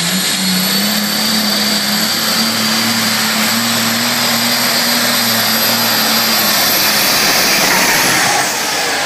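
Turbocharged diesel engine of a Pro Stock/Super Stock pulling tractor running wide open under full load as it pulls the sled down the track: a loud, steady engine sound with a high whine over it. It passes close by near the end.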